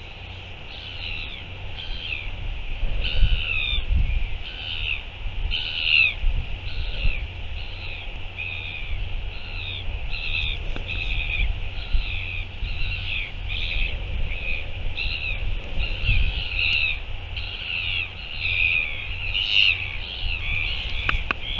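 Gulls calling in a rapid series of short, high calls, about two a second, over wind buffeting the microphone.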